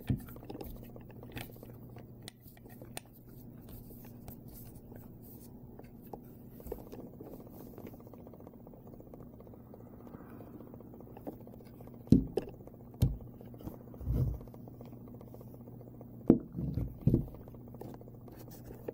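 Handling noise of a Craftsman 357 CO2 pellet revolver: scattered small clicks and scrapes, then several louder short knocks about twelve to fourteen seconds in and again around sixteen to seventeen seconds, as the pistol is handled and laid down on a plastic-covered table. A steady low hum runs underneath.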